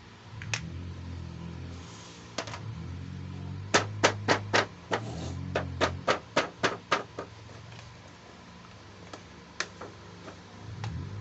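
Sharp plastic clicks and taps from toys and packaging being handled: a few scattered ones, then a quick irregular run of about a dozen in the middle, over a low steady hum.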